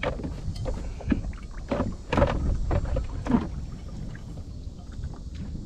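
Small boat on the water: a steady low rumble with several short knocks and splashes against the hull, the loudest about two seconds and three and a half seconds in.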